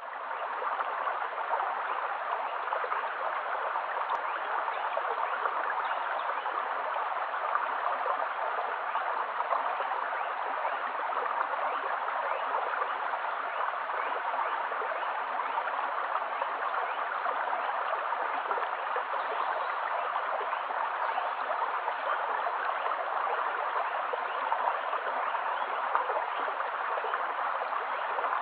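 Shallow stream flowing steadily over a pebble bed, an unbroken rush of running water.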